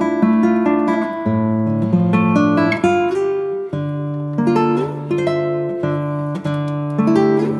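Background music: an acoustic guitar picking notes over a slower bass line.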